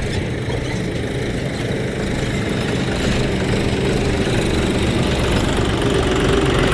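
Road milling machine's diesel engine running steadily under load as the machine is worked up a loading ramp, getting a little louder about three seconds in.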